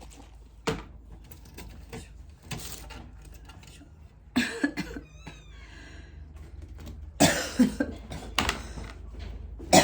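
A series of short, sharp coughs, spaced out at first and then several close together about seven to eight seconds in, with a faint high mew around five seconds in.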